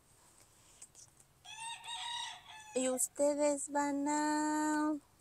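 Rooster crowing: a rough call about a second and a half in, then a crow of a few short notes ending in a long held note.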